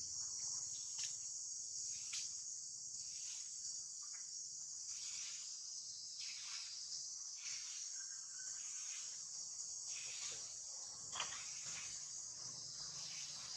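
Steady high-pitched insect chorus, pulsing faintly about once a second, with one short sharp click near the end.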